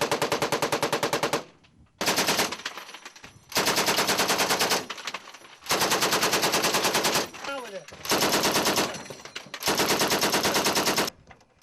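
M60 machine gun firing in short bursts of about ten shots a second: one burst already under way at the start, then five more of roughly half a second to a second and a half each, with brief pauses between. The last burst stops shortly before the end.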